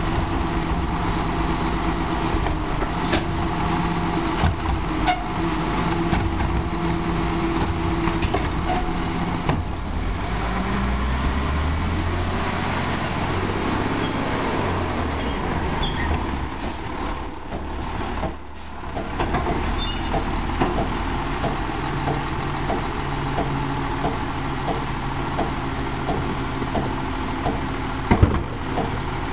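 Diesel engine of a Crane Carrier Heil PowerTrak rear-loader garbage truck running steadily, then revving and shifting as the truck pulls ahead, with a short air-brake hiss as it stops. It then runs steadily again, with a few sharp knocks near the end.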